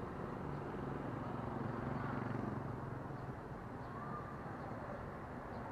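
Low engine hum of passing motor traffic, swelling about two seconds in and then fading back.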